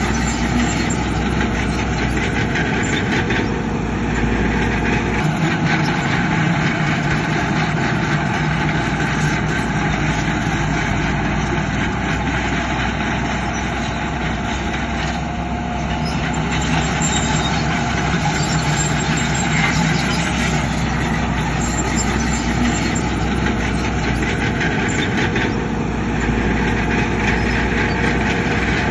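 Heavy diesel construction machinery running steadily, its engine note and low rumble shifting several times as it works.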